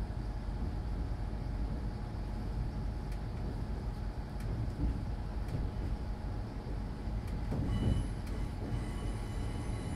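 Interior of a Hitachi Class 805 Evero motor carriage under way on diesel power: a steady low rumble of the underfloor engine and running gear, with a few sharp clicks from the track. Thin high whines come in near the end.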